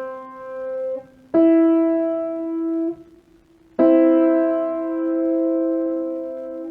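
Piano playing an interval for ear training: a lower note fading, a higher note struck about a second in, then both notes struck together and held. The two notes are about a third apart.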